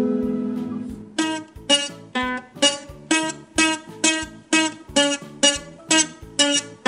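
Ukulele strummed: a chord rings out and fades over the first second, then steady strums follow at about two a second.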